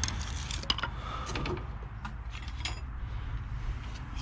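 Scattered light clicks and knocks of metal parts and hand tools being handled on an engine, over a steady low background hum.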